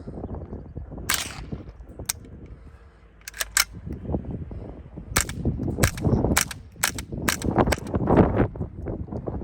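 Suppressed .22LR shots from standard-velocity ammunition through a Little Spoon suppressor: about a dozen sharp cracks at an uneven pace, coming quicker in the second half. Wind rumbles on the microphone.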